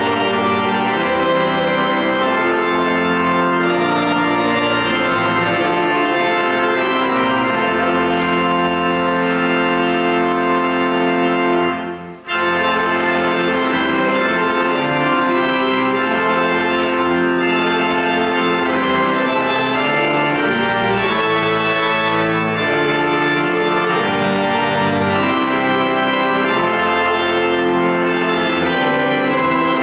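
Church organ playing slow, held chords, with a brief break about twelve seconds in.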